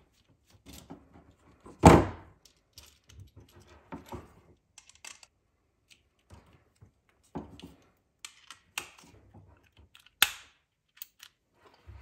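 Scattered clicks, taps and knocks from handling a GFCI receptacle and its wires while working its terminal screws with a screwdriver, with a sharp knock about two seconds in and another near the end.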